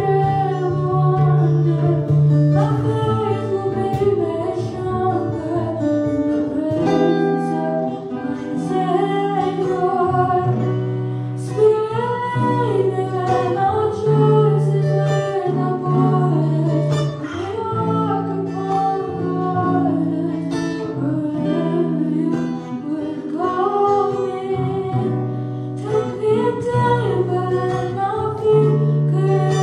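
A girl singing a song into a microphone over acoustic guitar accompaniment, amplified through the room's sound system.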